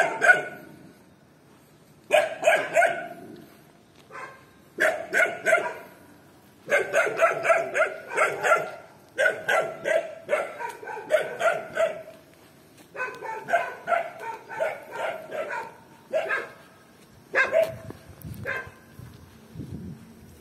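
A dog barking repeatedly in quick runs of several barks with short pauses between them, thinning out to single barks near the end.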